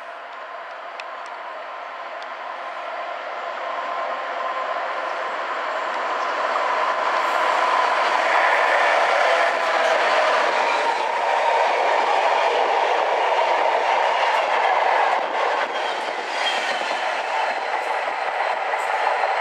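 Heritage passenger train passing at speed, led by a Renfe 289 electric locomotive with historic coaches behind: it grows louder over the first several seconds as it approaches, stays loud as the locomotive and coaches go by with wheel-on-rail noise and a steady hum, then eases off slightly as the tail passes.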